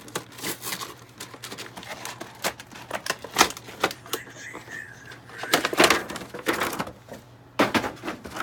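Plastic and cardboard action-figure packaging being handled and opened: a run of irregular clicks, taps and crackles.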